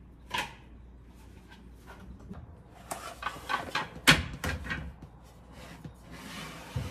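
Dishes being set down on the shelves of an under-sink rack. There is a knock at the start, then a quick run of clinks and knocks in the middle with the loudest about four seconds in, and a short sliding scrape near the end as a plate is pushed onto a shelf.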